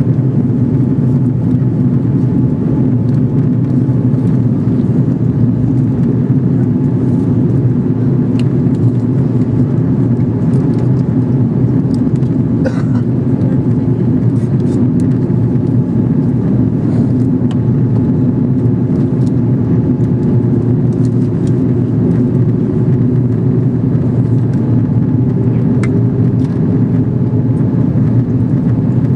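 Steady, loud drone of an Airbus A330 airliner in flight, heard inside the cabin: engine and airflow noise, unchanging throughout.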